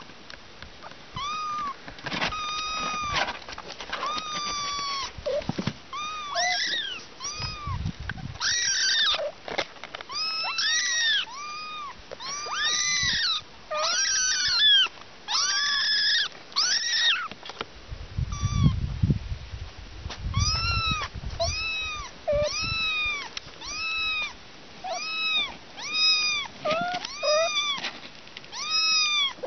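Young kittens mewing over and over: short, high-pitched calls that rise and fall, one or two a second, sometimes overlapping as more than one kitten cries. A low rumble joins in for a few seconds about midway.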